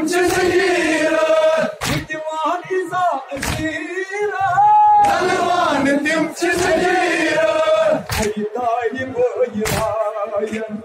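A crowd of men chanting a nowha, a Shia lament, in unison, with a few sharp slaps of hands on chests (matam) falling between the sung lines.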